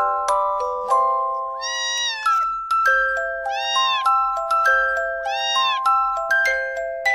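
Kitten meowing three times, each call rising and falling in pitch, over background music of quickly struck, ringing notes.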